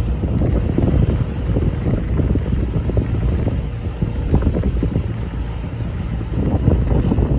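Fishing-boat engines running as squid-fishing boats head out of harbour, a low steady rumble, with wind buffeting the microphone in uneven gusts.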